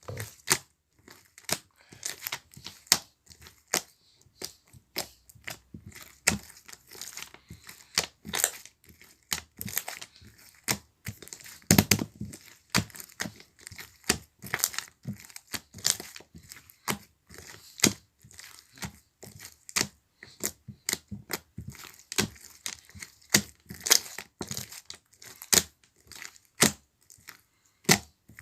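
Close, irregular crunching and crinkling handling sounds: a dense string of sharp clicks and crackles with no steady rhythm.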